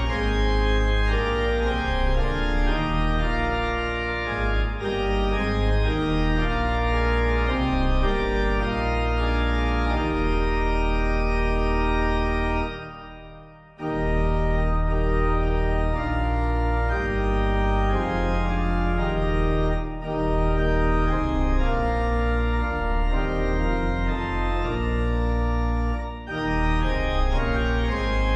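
Organ playing a hymn in full, sustained chords. The music fades out about halfway through, stops for about a second, then starts again.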